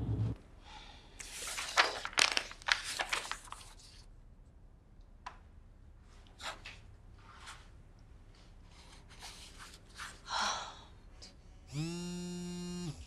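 Papers rustling and being handled, with scattered small clicks of desk work. Near the end, a smartphone vibrating on a wooden desk for an incoming call: a steady buzz for about a second.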